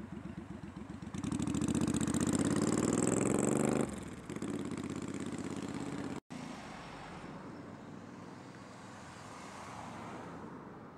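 Road traffic passing close by: a vehicle's engine rising in pitch as it accelerates past, loudest in the first few seconds, then more cars going by with engine and tyre noise that fades away.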